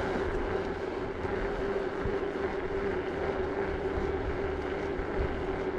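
Bicycle riding along a paved road: wind rushing over the microphone and tyre noise, with a steady hum throughout.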